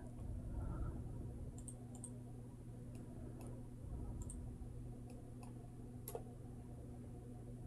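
Faint computer mouse clicks, single and irregularly spaced, over a steady low hum.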